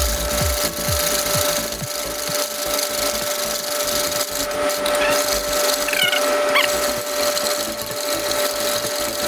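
Wire balloon whisk beating egg yolks and sugar in a stainless steel bowl: a continuous fast scraping and clinking of the wires against the metal.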